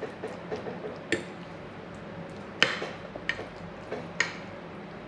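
Fork clinking and scraping against a glass baking dish as a rice mixture is spread out, with four sharp clinks; the loudest comes about two and a half seconds in.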